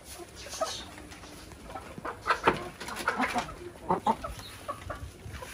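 Bangladeshi native hill chickens (pahari deshi hens) clucking in their coop: several short clucks, bunched between about two and four seconds in.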